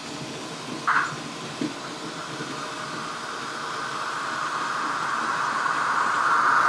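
Sound decoder of a Märklin E41 model electric locomotive playing its built-in sounds through the model's small speaker: a short burst about a second in, a brief click shortly after, then a steady hiss that grows louder.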